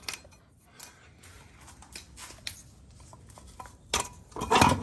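Light clicks and scrapes of tools and metal parts being handled, then a sharp metallic knock about four seconds in and a louder metal clank with a short ring near the end, as a rusted front wheel hub is worked loose.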